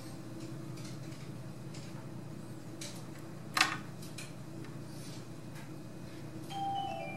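Light taps and faint clicks of fingers on an Android tablet's touchscreen over a steady low hum. About three and a half seconds in there is one sharp, louder click, just as the screen goes to the lock screen. Near the end comes a short run of falling musical tones.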